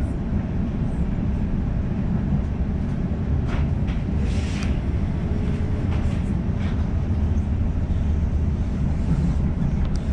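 A Sydney suburban electric train running along the track: a steady low rumble of wheels and carriage, with a few brief higher-pitched squeals and rattles about three to five seconds in.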